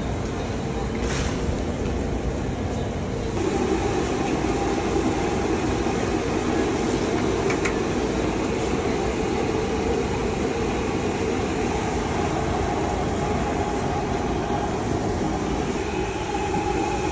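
Banana fritters deep-frying in a large wok of hot oil: a steady sizzling rush that grows louder about three seconds in.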